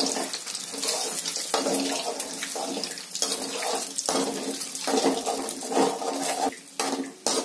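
Eggs sizzling in hot oil in a kadai while a steel spatula scrambles them, scraping and knocking against the pan.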